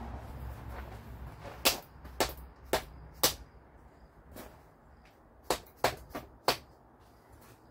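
Hammer tapping on the steel front leaf spring assembly: four sharp strikes about half a second apart, a short pause, then four more.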